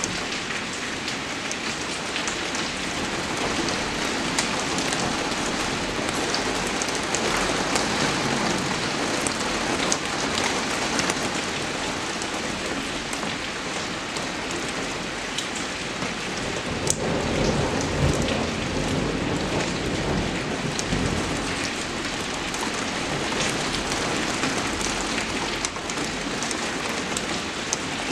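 Steady rain falling: a dense, even hiss scattered with sharp drop ticks. A low rumble swells briefly a little past the middle.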